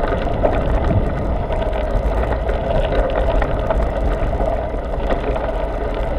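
Mountain bike rolling over a gravel dirt track: a steady rumble of tyres on gravel, with many small rattling clicks from stones and the bike, and some wind.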